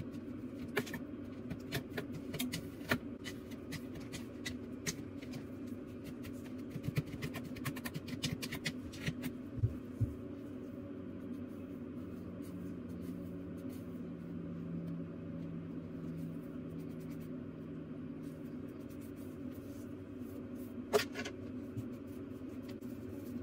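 Light scattered taps and clicks of a tint brush and comb being worked through a synthetic wig while dye is applied, thickest in the first ten seconds, with one sharper click near the end. A steady low room hum runs underneath.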